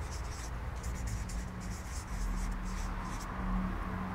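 Felt-tip marker writing on a flip-chart pad: a run of short strokes on the paper that stops about three seconds in, over a steady low hum.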